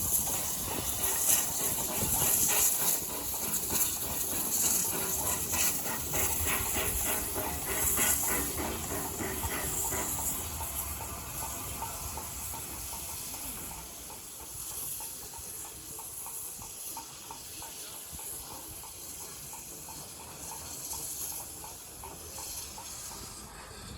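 USATC S160 steam locomotive hissing steam, with a run of regular puffs in the first ten seconds, then growing fainter as it moves off.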